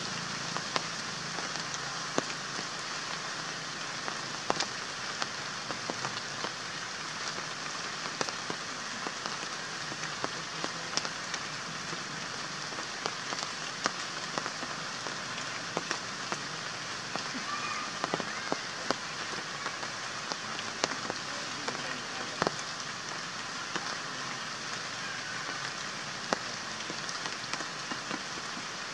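Steady rain falling, with scattered sharp drops and drips striking close by.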